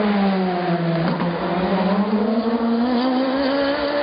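Race car engine running hard. Its pitch drops over the first second or so as the car slows, then climbs steadily as it accelerates away.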